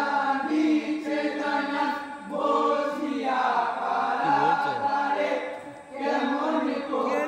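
A chorus of men chanting a Bengali marsiya, a mourning song, in unison in long held phrases, pausing briefly twice.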